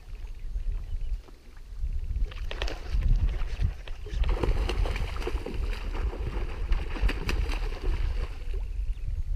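A hooked sharptooth catfish (barbel) thrashing and splashing at the water's surface. The splashing builds about two seconds in and is heaviest through the second half, over a steady low rumble.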